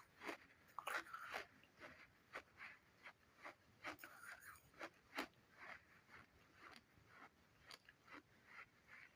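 A person chewing a mouthful of crunchy sand, with short sharp crunches about two to three a second, louder in the first second and a half and fainter after.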